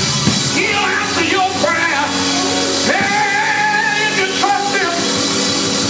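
A man singing a gospel song into a microphone over instrumental backing, drawing out long wavering notes, with one held for about a second near the middle.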